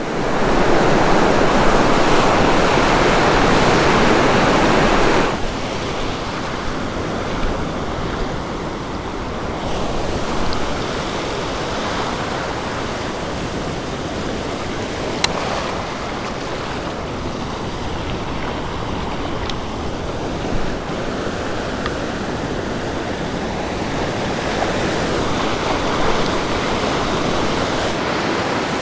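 Ocean surf breaking and washing up a beach: a steady rushing noise, louder for about the first five seconds.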